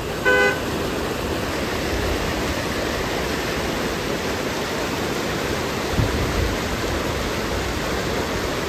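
Steady rushing noise of running water, like a fast stream or river. A short, high pitched beep sounds about a third of a second in.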